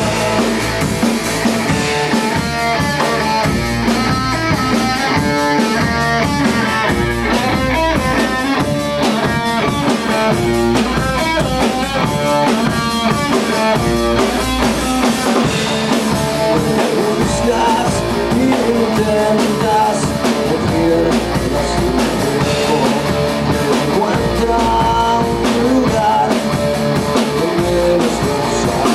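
Rock music with electric guitar and drum kit playing steadily.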